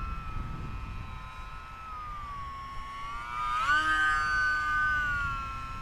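Electric motor and propeller of an E-Flite UMX Pitts S-1S micro RC biplane whining steadily in flight. About three and a half seconds in, the whine rises sharply in pitch and gets louder as the plane makes a low pass close by, then eases back down near the end.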